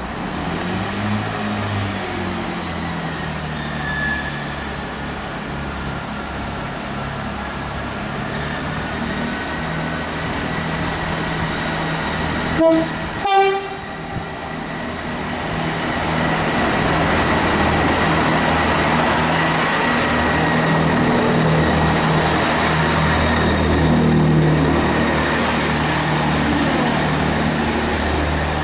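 Diesel engines of a Class 165 Networker Turbo running, with a steady low drone. About 13 seconds in the horn sounds two short notes, the second higher than the first. After that the engine note grows louder and stays up as the unit comes along the platform.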